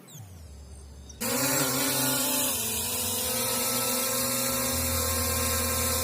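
SJRC F11S quadcopter's electric motors spinning up abruptly about a second in, then holding a steady, drill-like whine with several fixed pitches.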